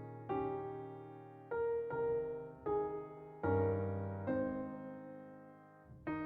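Slow, gentle piano music: chords struck about once a second, each left to ring and fade before the next.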